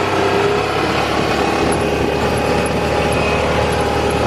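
Side-by-side utility vehicle's engine running steadily while driving, a low drone with a steady whine above it, rising slightly at the start.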